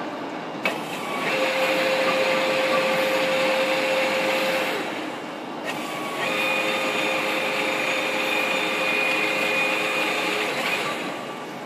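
Machinery on a large Poreba engine lathe running with a steady motor whine. It comes on twice, after a click about a second in and again around six seconds, and drops back in between and near the end.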